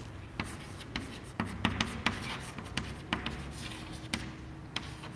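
Chalk writing on a chalkboard: a run of irregular sharp taps and short scratches as letters are formed.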